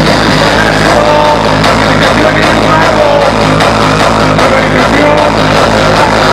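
Loud dance music with a steady beat played through a sonidero's sound system.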